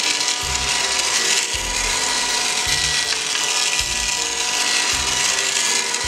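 A battery-operated toy vacuum cleaner's small motor running with a steady, buzzing whir, meant to sound like a real vacuum cleaner. Low notes pulse underneath about once a second.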